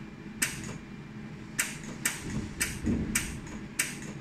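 A 200 W jewelry laser welder firing pulses: six sharp snaps, irregularly spaced about half a second apart, over a steady low machine hum.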